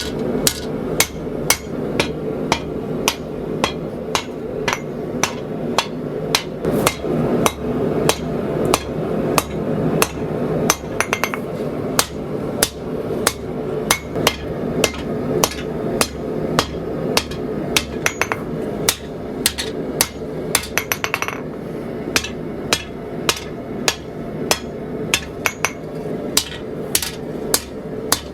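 Hand hammer striking hot 80CrV2 steel on an anvil while forging a knife preform, steady blows about two a second. A few quick clusters of lighter strikes, near the middle and about two-thirds through, break the rhythm, over a constant low rumble.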